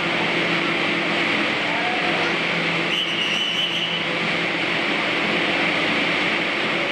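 Steady hum and rushing of the air-supported dome's blower fans, a constant mechanical drone with a few held low tones. A brief high tone sounds about three seconds in.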